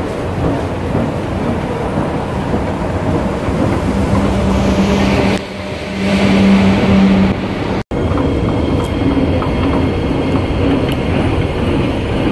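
Steady rumble of an MRT station with an escalator running, and a low steady hum that comes twice in the middle. The sound cuts out for an instant about eight seconds in.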